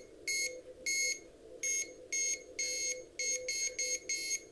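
Morse code (CW) sounding as a string of high beeps, short and long, keyed on and off in an uneven dot-dash rhythm. A fainter, lower tone keys on and off along with it.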